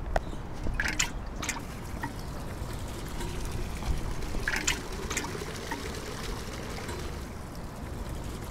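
Water pouring from the spout of a galvanized metal watering can onto a hedge's foliage, a steady trickling splash that sets in a few seconds in. A few sharp knocks, like footsteps, come in the first second and a half.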